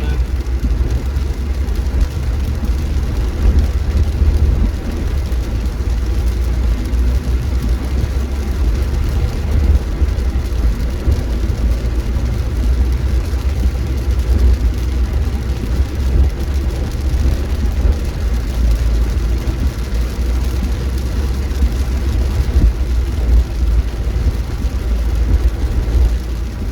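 Steady road and engine drone inside a moving car's cabin, a constant low rumble.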